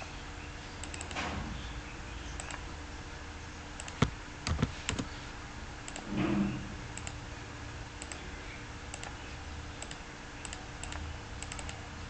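Scattered clicks of a computer mouse and keyboard, with a sharper click about four seconds in and a few more just after, over a steady low hum.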